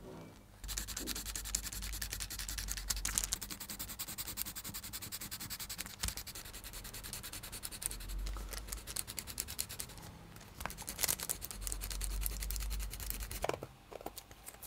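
Pencil rubbed rapidly back and forth over parchment paper laid on lino, a fast, dense scratching that transfers the traced graphite lines onto the lino. It stops near the end.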